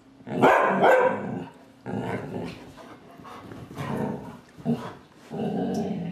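Dogs barking and growling while play-fighting: two loud barks about half a second in, then a string of shorter barks, and a longer growl near the end.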